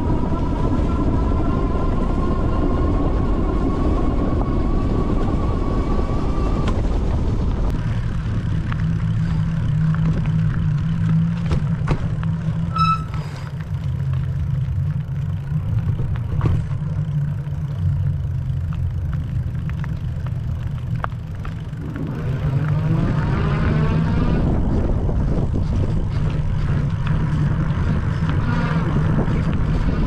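A 750 W electric bike under way on fat tyres: a thin motor whine climbs slowly in pitch with speed, then stops about seven seconds in. Wind rumble on the microphone and tyre noise run underneath. A rising whine comes back as the bike speeds up again, about three-quarters of the way through.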